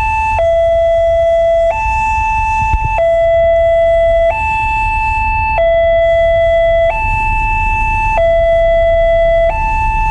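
Railway level-crossing warning siren sounding its two-tone alarm, alternating steadily between a lower and a higher tone, each held for just over a second. It signals that the barriers are down and a train is approaching.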